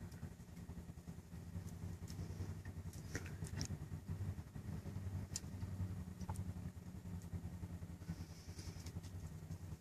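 Utility vehicle (a Mule) engine idling steadily, with a few faint sharp clicks over it.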